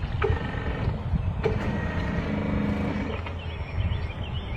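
Hydraulic pump motor of a 1:12 scale RC long-boom excavator running, a steady whine that changes pitch as the boom and bucket lift out of the water, over a low rumble. Two sharp clicks about a quarter second and a second and a half in.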